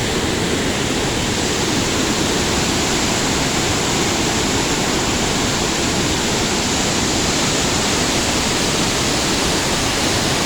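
Waterfall crashing down, a steady, dense roar of falling water.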